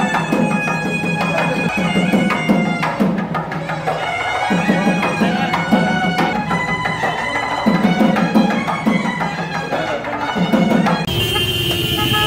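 Traditional Indian music: a reed pipe holding long notes over rhythmic drumming. Near the end it cuts abruptly to motorcycle engines and horns in a crowded street.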